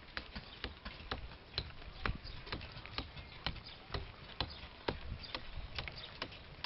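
Traditional iron carving hammer striking stone in a steady rhythm of about two sharp blows a second, chipping a block into shape for a stone cooking pot.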